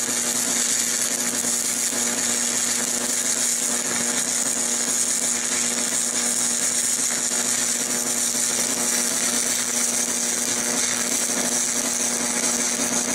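Stick-welding arc of a 3/32-inch 7018 electrode burning on cast iron: a steady crackle and hiss with a constant low hum beneath, the rod running poorly.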